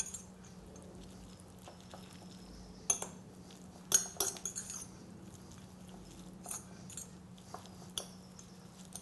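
A metal fork tossing sauced noodles in a glass mixing bowl: scattered clinks of metal against glass, the sharpest about three and four seconds in.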